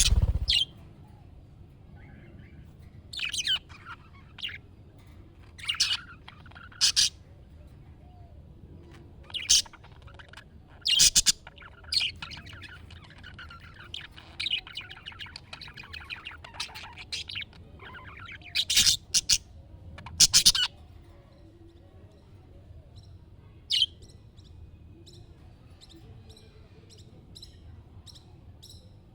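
Budgerigars calling: loud, sharp chirps and squawks every few seconds, with softer warbling chatter between them.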